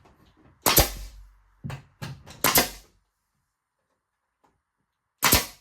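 Porter Cable 16-gauge finish nailer firing 2-inch straight finish nails through the tongue of tongue-and-groove car siding: a quick series of sharp snaps, then one more shot after a pause near the end.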